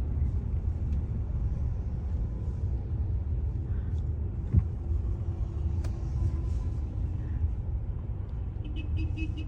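Low, steady rumble of a car moving in slow traffic, heard from inside the car, with one sharp knock about four and a half seconds in.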